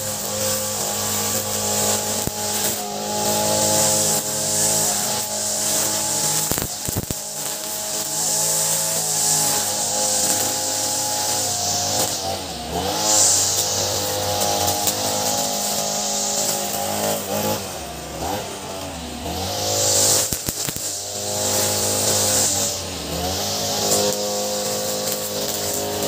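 Ogawa 26cc multi-tool brush cutter running with a nylon-line trimmer head. The engine note dips and recovers a few times as the spinning line cuts grass between concrete paving slabs, with bursts of hissing from the line.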